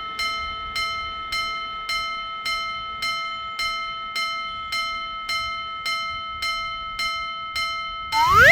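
Japanese level-crossing warning bell ringing its "kan-kan" alarm, about two strikes a second, each strike ringing on into the next. Near the end a short rising swoop cuts in and is the loudest sound.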